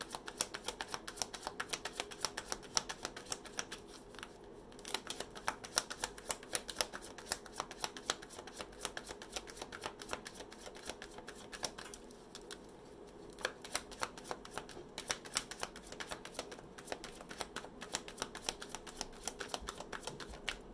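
A deck of tarot cards being shuffled by hand, hand to hand: a rapid stream of soft card flicks and slaps, with short pauses about four seconds in and again around twelve seconds in.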